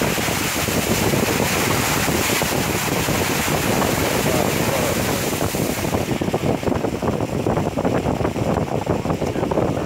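Wind buffeting the microphone over the road noise of a moving car. The high hiss eases about six seconds in, and the gusty rumble carries on.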